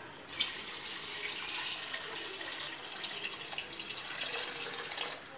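A steady stream of water pouring into a stainless steel pot of chicken and masala gravy, splashing into the liquid. The pour starts just after the beginning and stops near the end.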